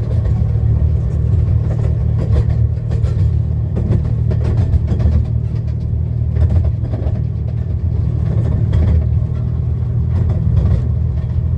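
Miniature railway carriage running along the track, heard from inside the enclosed carriage: a steady low rumble of wheels on rails with scattered light clicks.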